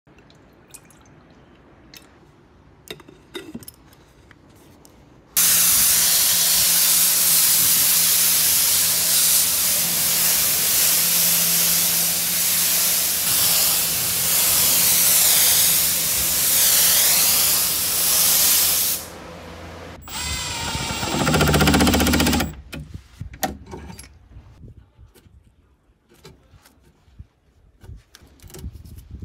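Compressed-air spray gun spraying wood finish onto a pine cabinet: a loud, steady hiss that starts abruptly about five seconds in and lasts about thirteen seconds, with a steady low hum underneath. A shorter loud mechanical burst follows, then light clicks and knocks.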